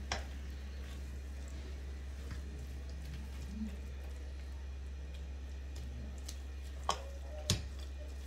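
Spatula stirring and mashing soft cooked pumpkin in a pan, with a sharp knock of the spatula against the pan just after the start and two more near the end, about half a second apart. A steady low hum runs underneath.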